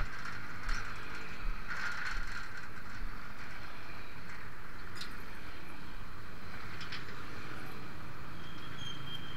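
Steady road and traffic noise heard while riding along a road, with a few light clicks and rattles and a short high beep near the end.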